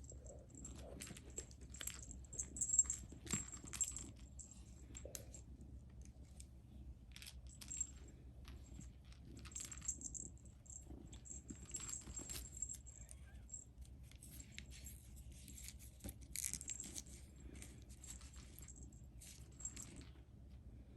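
Light metallic jingling and clicking, on and off, in short clusters, with the loudest run about three seconds in and another about sixteen seconds in.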